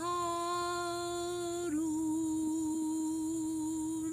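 A woman's unaccompanied voice holding the final drawn-out notes of the song: one long note, then a slightly lower one held softly, close to humming, until it fades near the end.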